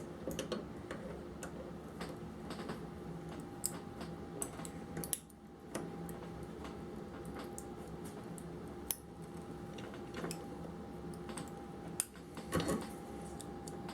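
Scattered light clicks and taps of small hard objects being handled, over a steady low hum.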